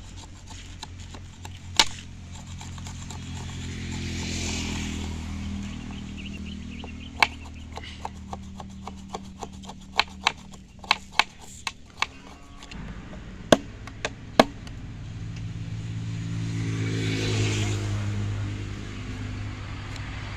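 Knife carving a point on a wooden stick against a board: sharp knocks of the blade striking the wood, one near the start and a cluster of about ten in the middle. Under them a motor vehicle's engine hum swells and fades twice as it passes.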